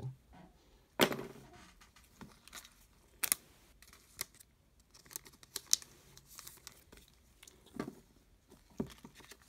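Football trading cards handled and squared into a stack on a tabletop by gloved hands: soft rustling of card stock with a few sharp taps and clicks.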